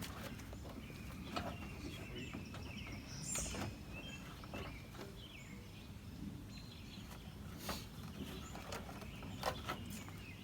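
Quiet outdoor background with faint bird chirps and a few scattered light clicks and knocks from parts being handled.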